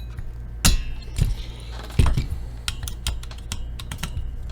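Typing on a computer keyboard: a few heavier knocks in the first two seconds, then a run of quick key clicks.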